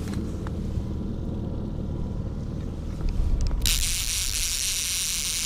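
Steady low rumble of the boat's outboard motor running at trolling speed. About three seconds in, wind buffets the microphone, and a loud steady hiss follows.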